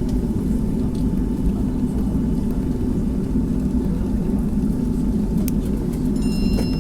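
Cabin noise inside a Boeing 757 taxiing after landing: a steady low rumble of engines at idle and wheels rolling. A few faint high tones come in near the end.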